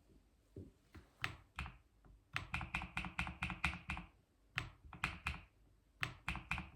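Keys being typed on a keyboard in short bursts: a few single keystrokes, then a fast run of about six a second, pauses, and two shorter runs.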